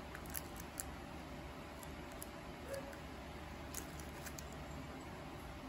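Siamese cat's paws pattering and claws lightly ticking on a tile floor as it turns after its tail, a few scattered clicks over a steady background hiss.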